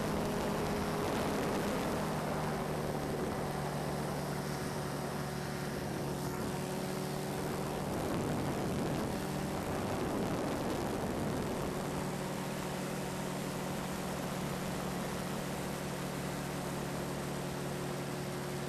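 Light propeller aircraft's engine droning steadily in flight, heard from an open cockpit with a rush of air; the pitch wavers briefly about halfway through.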